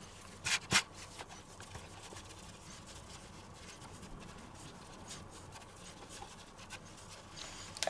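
Two short slaps as pizza dough comes down on a floured wooden cutting board, then faint scraping and rubbing as fingers press and stretch the dough out on the board.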